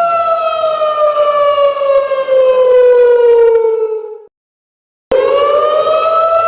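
Siren sound effect: the steady siren tone slowly falls in pitch for about four seconds, then cuts off abruptly. After under a second of silence it starts again low and rises back up to its steady pitch near the end.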